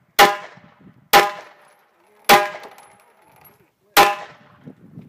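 Four pistol shots at irregular spacing of about one to two seconds, each followed by a short fading ring.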